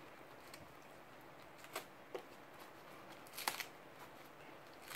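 Green lotus seed pod being broken apart by gloved hands, giving a few short, sharp snaps and crackles, the loudest cluster about three and a half seconds in.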